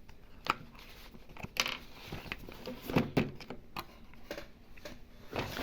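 Faint, irregularly spaced clicks and light taps, about seven of them, over low background noise.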